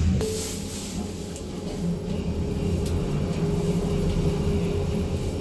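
Passenger lift running: a steady low hum with a faint steady whine above it as the car travels between floors.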